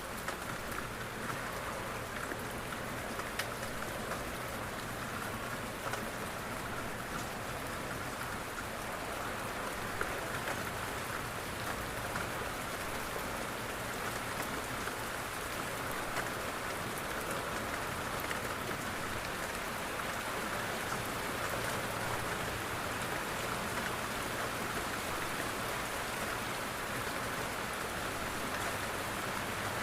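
Steady rain on a window: an even hiss with scattered, sharper taps of single drops.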